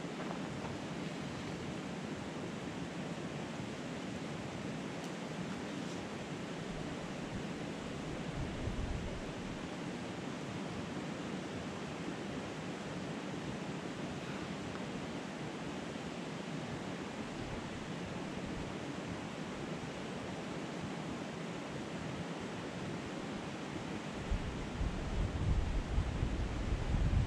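Steady rushing outdoor background noise, even and without distinct events. Near the end, gusts of wind buffet the microphone with a low rumble.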